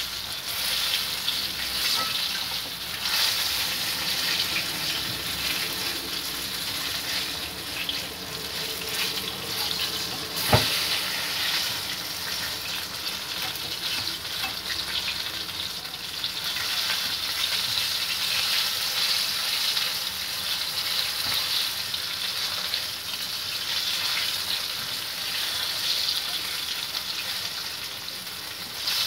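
Breaded chicken pieces sizzling steadily as they fry in hot oil in a wok, turned now and then with wooden chopsticks. There is a single sharp click about ten seconds in.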